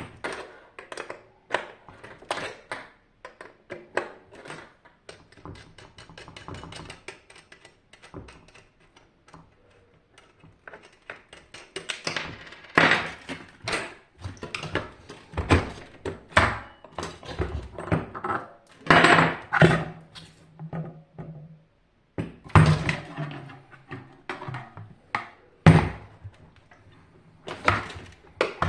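Irregular knocks, clicks and clunks of parts and tools being handled while a hot-water heater is taken apart, with louder clusters of clunks in the second half.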